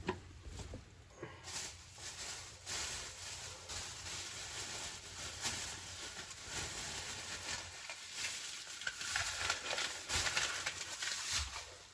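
Irregular rustling and handling noises with scattered light knocks and crinkles, typical of packaging being moved about by hand.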